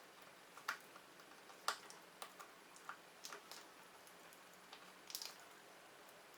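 Irregular light clicks and taps of hand work on small parts, with the loudest near the start and a cluster about five seconds in, over quiet room tone.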